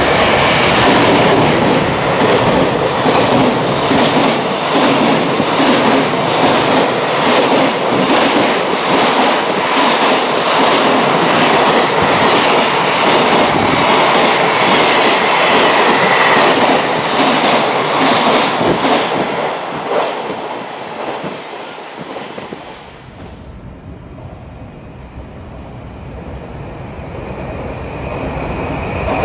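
A freight train of mostly empty container flatcars passes at speed, its wheels clattering over the rail joints in a steady, even rhythm. It fades away about two-thirds of the way in. Near the end a second train is heard approaching, growing louder.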